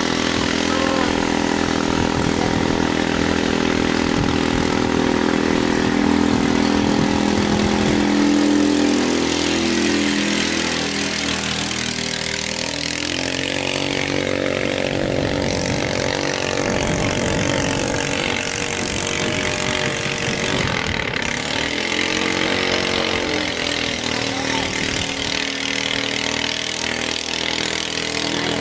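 Single-cylinder 13.5 HP (405 cc) longtail boat engines, converted to run on LPG, running hard at high revs. The pitch holds steady at first, then swells and falls as boats speed past, around the middle and again about three-quarters through.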